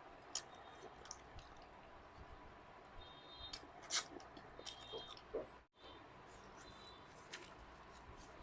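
Close-up eating sounds: soft chewing with scattered wet lip smacks and small mouth clicks and squeaks, the sharpest click about four seconds in. The sound drops out for a moment just past the middle.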